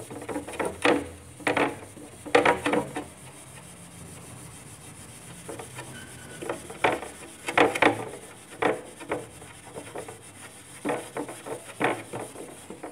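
Dry steel wool scrubbing over a car window glass in quick back-and-forth strokes, a scratchy rasping that rubs off stains and dirt. The scrubbing eases off for a few seconds near the middle, then picks up again.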